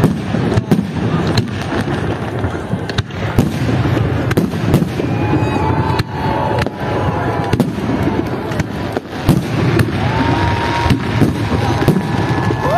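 Fireworks display: aerial shells bursting in a rapid, irregular series of bangs over continuous crackling.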